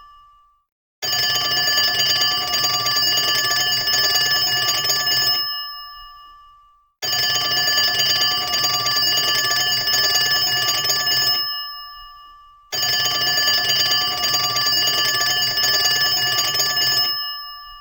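Old-school telephone bell ringing, as used in cartoons: three long rings of about four seconds each, the clapper striking rapidly, each ring fading out before a short pause.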